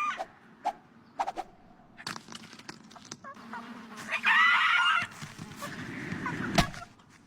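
Cartoon sound effects: scattered clicks and cracks, a warbling, squawk-like bird call about four seconds in, and a sharp snap near the end.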